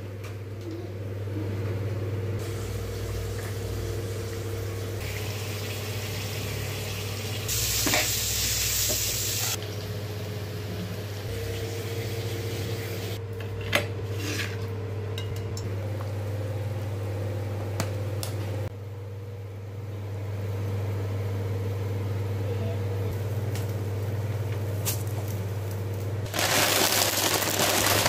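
Kitchen cooking sounds over a steady low hum, with a few brief clinks about halfway. Near the end a loud hiss of water at the boil sets in as rice vermicelli goes into the pot.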